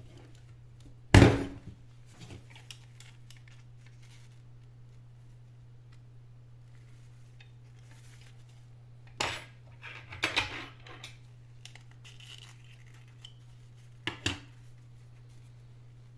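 Small plastic and metal parts and tools knocking and clinking on a work surface while a stick vacuum's turbo brush is taken apart: one sharp knock about a second in, the loudest, then a few clusters of clinks near ten and fourteen seconds, over a steady low hum.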